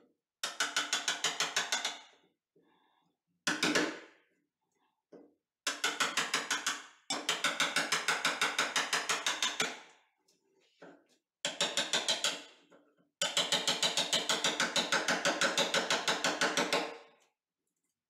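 Hammer tapping a bevel-edged chisel to cut a hinge mortise in the edge of a beech-wood door, in quick runs of about six taps a second, six runs in all, with short pauses between them.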